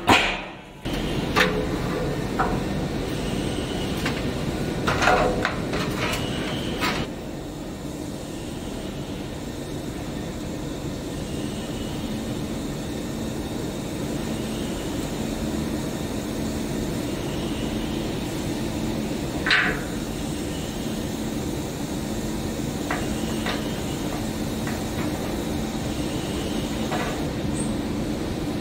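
Steady low mechanical hum of running workshop machinery, with a few short metal clinks and knocks as diffusion pump parts are handled and fitted.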